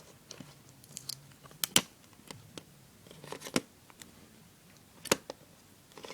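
Plastic packaging of an iPod touch being handled and picked at: scattered sharp clicks and crinkles, the loudest a few separate snaps about two, three and a half and five seconds in.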